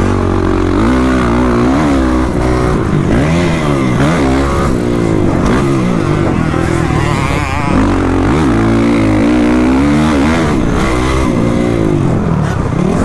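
Motocross dirt bike engine racing at close range, revving up and down over and over, its pitch rising and falling about once a second as the throttle opens and closes around the track.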